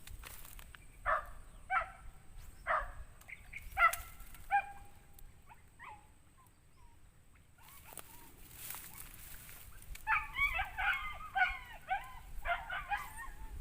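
An unseen animal calling: a few short, separate pitched calls, then about ten seconds in a quick run of chattering calls. It is a strange, unidentified animal sound.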